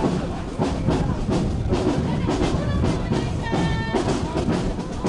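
A parade band playing, with drums keeping a steady beat and brass, and a short held note about three and a half seconds in.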